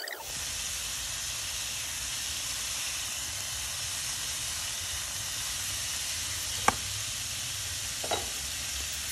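Carrot pieces and halved tomatoes frying in oil on a ridged grill pan: a steady sizzling hiss. Near the end come two short clicks about a second and a half apart, the first sharp.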